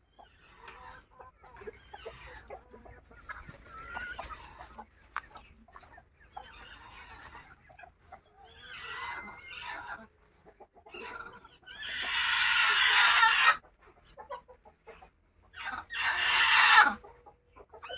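Chickens clucking and calling, with two much louder, longer calls in the second half, each lasting over a second.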